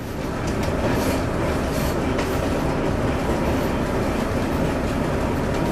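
Diesel train running along the track, heard from the driver's cab: a steady noise of engine and wheels on rails.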